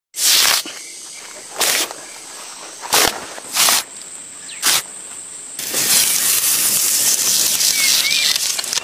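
Bark being torn in strips from a tree trunk: five short rips, then a longer, steady tearing rasp from a little past halfway on.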